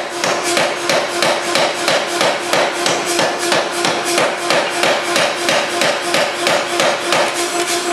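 3B Nazel forging hammer's 265-pound ram pounding a red-hot stainless steel bar in a rapid, even run of blows, drawing it down to square, over a steady machine hum.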